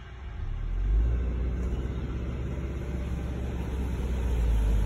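Low, steady rumble of a car driving, heard from inside the cabin, swelling about a second in.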